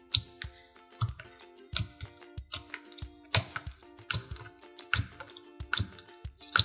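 Fingertip poking and pressing into clear slime, giving irregular crisp clicks and squishy pops, over quiet background music.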